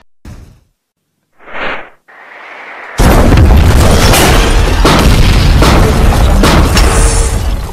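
A steel shipping container blowing up: a very loud explosion hits about three seconds in and carries on as a heavy rumbling blast with several sharp cracks. Before it comes a short swelling whoosh.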